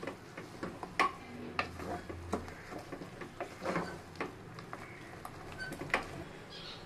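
Wooden spatula stirring food in an aluminium pressure cooker, knocking and scraping against the pot with irregular clacks. The loudest knocks come about a second in and near the end.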